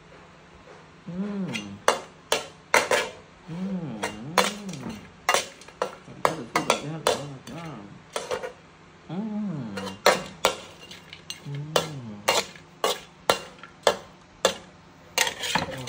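Metal spoon clinking and scraping against an aluminium wok as fried crickets are stirred, with many sharp clicks throughout. A man's low wordless murmuring comes between the clinks.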